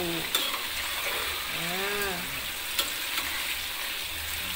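Chicken pieces deep-frying in hot oil in a wok: a steady sizzle with scattered crackles. Near the end a spatula stirs the pieces in the oil.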